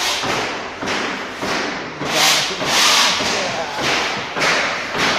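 Demolition work breaking up the structure above the heater: repeated hard strikes about every half second, with a longer scraping stretch about two to three seconds in.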